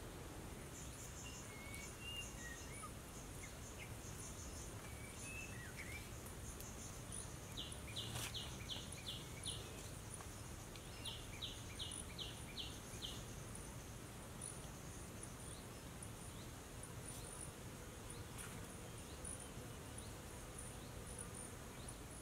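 Faint insects chirping: a steady, very high chirping throughout, with two runs of about six rapid, evenly spaced chirps near the middle, over a soft hiss.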